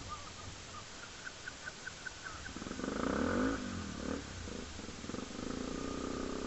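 Honda XR250 Tornado's single-cylinder four-stroke engine running, with a brief rise and fall in engine speed about three seconds in, then settling to a steady run.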